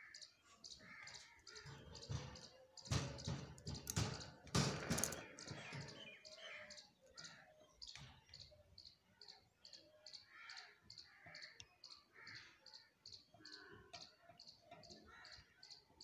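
Budgerigars chattering softly in short chirps, over a steady high ticking of about three ticks a second. About three to five seconds in there is a louder burst of rustling noise.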